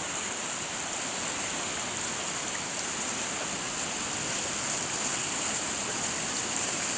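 Teesta River in flood, rushing: a steady, unbroken noise of fast-moving water.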